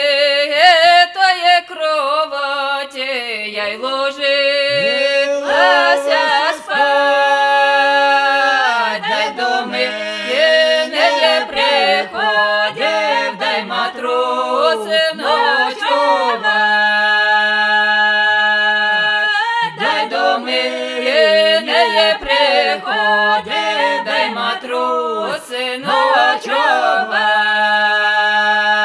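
Three voices, two women and a man, singing a Ukrainian folk song a cappella in close harmony, with gliding ornaments between long held chords over a steady low note.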